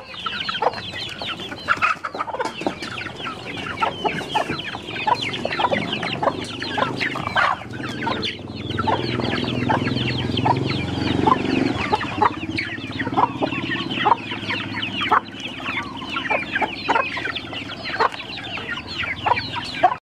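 A flock of chickens feeding: chicks peeping constantly with short, falling calls, over the clucking of the hens.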